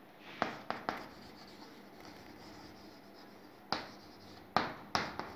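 Chalk writing on a chalkboard: short sharp taps and scratchy strokes, a few near the start and a cluster again toward the end, with a quiet pause in between.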